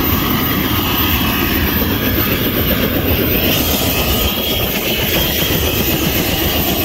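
Helicopter running, a steady, loud rumble of turbine engine and rotor with a hiss of rushing air over it.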